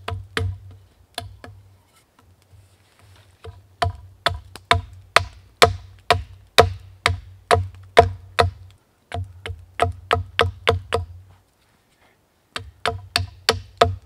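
Repeated sharp wooden knocks, in runs of about two to three a second with short pauses between them, each with a short hollow ring: a knife chopping into a green stick to point it for staking into the ground.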